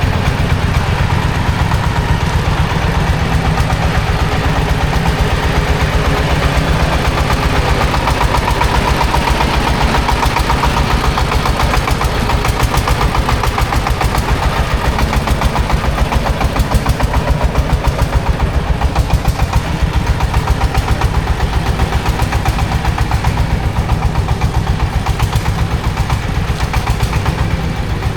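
An engine running steadily at idle with an even, rapid chugging beat.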